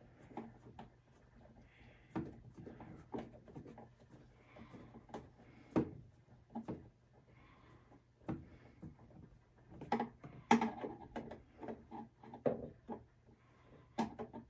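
Irregular small clicks, taps and scrapes as a screw is tightened and a bracket is handled, busiest around two-thirds of the way through.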